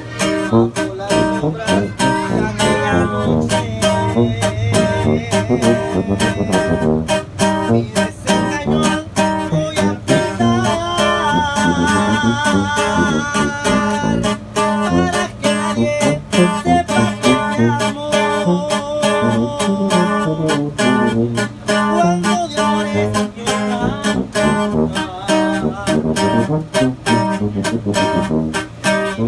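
Live norteño music: button accordion, acoustic guitar and sousaphone playing together with a steady beat.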